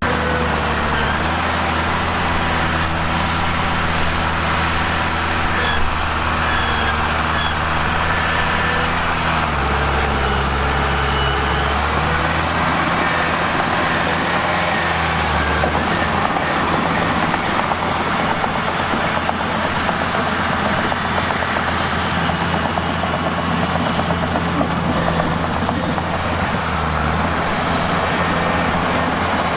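Mitsubishi bulldozer's diesel engine running steadily and loudly, its note stepping down and back up in pitch several times.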